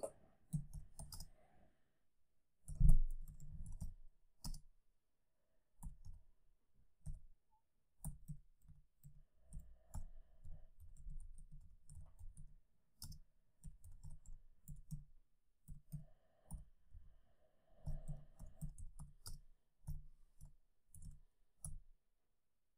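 Typing on a computer keyboard: a run of irregular key clicks, with one louder knock about three seconds in.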